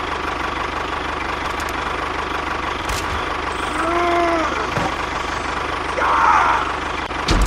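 A tractor engine idling steadily. A brief whistle that rises and falls comes about four seconds in, and a short hiss about six seconds in.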